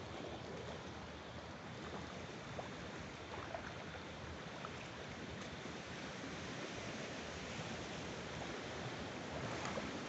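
Steady wash of lapping water, with a swimmer's breaststroke splashing close by and a little louder near the end.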